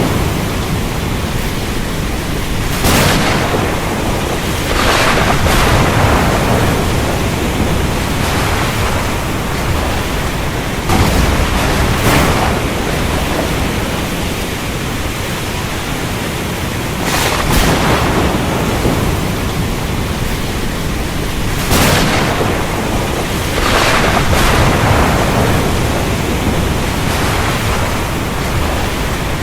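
Thunderstorm: steady heavy rain with about seven sharp thunder cracks, each trailing off into a rumble over a second or two.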